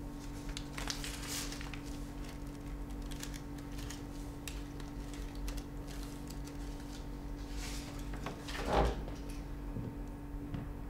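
Quiet indoor room tone with a steady low hum and scattered small clicks and rustles of movement. About nine seconds in, one louder sound falls in pitch.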